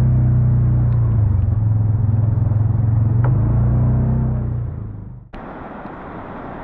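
Utility vehicle's engine running steadily as it drives slowly, its drone fading out about five seconds in. Then, after a sudden cut, a steady hiss of rain.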